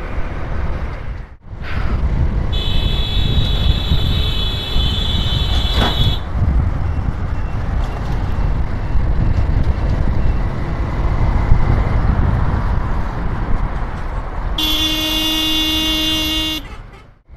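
Steady wind and engine rumble of a small motorcycle riding in highway traffic. A high-pitched vehicle horn sounds for about three and a half seconds starting a couple of seconds in. A lower horn sounds for about two seconds near the end.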